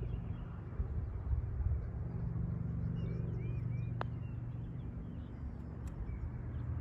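A single sharp tap of a putter striking a golf ball about four seconds in, over a steady low engine drone from an unseen motor. Faint bird chirps come and go.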